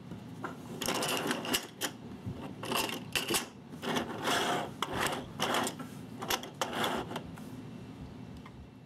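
3D-printed plastic dungeon tiles on magnetic bases clicking, clacking and scraping as they are pushed and slid together on a wooden tabletop, a quick string of sharp clatters that thins out near the end.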